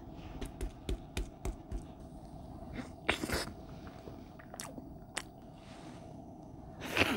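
Eating sounds over a pan of cheese ramen with rice: a spoon clicks several times against the pan and bowl, a breath is puffed out about three seconds in, then chewing.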